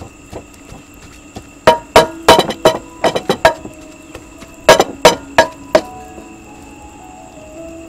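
Sharp clinks and knocks with a brief ring after each, in two irregular clusters, about two seconds in and again about five seconds in.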